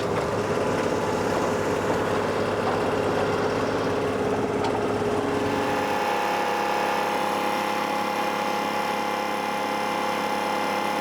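Diesel engine of a Wacker Neuson construction machine running steadily. About six seconds in, the deep low rumble drops away and a higher steady whine takes over, as the machines change what they are doing.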